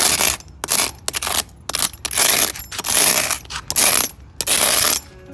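Long-handled metal weed scraper scratching weeds and grit out of the joints between brick paving stones, in repeated rough strokes about two a second with short pauses between them.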